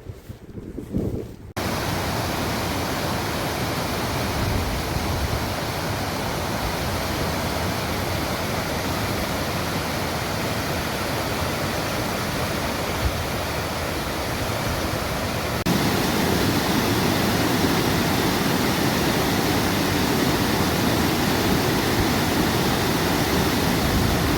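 Waterfall rushing: a steady noise of falling water. Over a quieter low rumble of wind at the start, it jumps abruptly louder about a second and a half in. It steps up again, fuller and deeper, about two-thirds of the way through.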